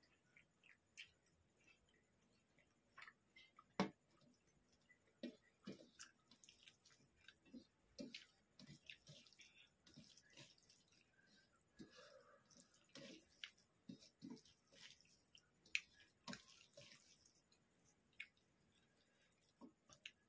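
Faint wet squishing and soft clicks of a bare hand mixing rice with chicken and potato curry on a metal plate, with a few sharper clicks, the loudest about four seconds in and near sixteen seconds.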